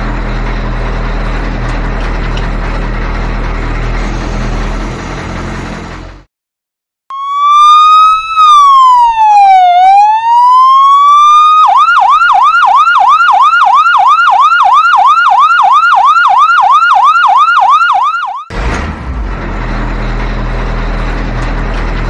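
Electronic siren. A slow wail rises, falls and rises again, then switches to a fast yelp sweeping about four times a second for some seven seconds. Before and after the siren there is a steady whirring noise with a low hum, cut by a brief silence just before the siren starts.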